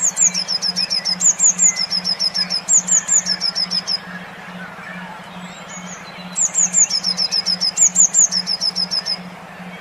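A songbird singing two bouts of rapid, high-pitched repeated chirps, each a few seconds long, with a short pause between. Under the song runs a steady, evenly pulsing low tone.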